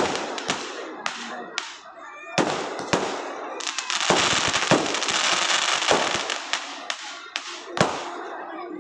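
Fireworks display: aerial shells going off in a string of sharp bangs, about one every second or so, over long stretches of crackling hiss from the burning sparks.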